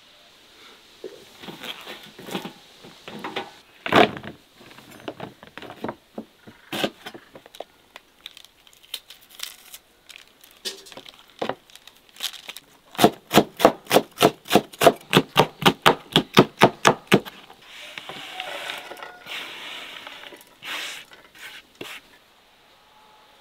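Hands working fresh hot peppers on a wooden table, with irregular snaps, cracks and tearing sounds. About halfway through comes a run of even, sharp knocks, about four a second for some four seconds, then a rough scraping rush that stops near the end.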